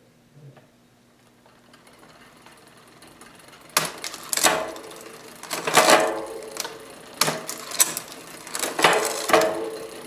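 Bicycle drivetrain turned by hand: the chain runs over the chainrings and rear cogs through the front derailleur cage, whirring and clicking in a series of surges that start about four seconds in.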